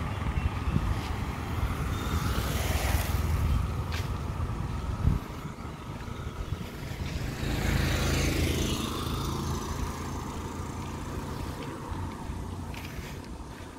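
Road traffic: motor vehicles pass close by, a low engine rumble with tyre hiss that swells and fades twice, the second pass about eight seconds in. There is a short thud around five seconds.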